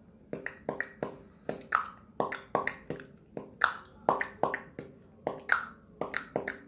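Beatboxing: a rhythmic run of sharp vocal percussion sounds made with the mouth, several strokes a second, starting just after the beginning. It is a beginner's practice pattern.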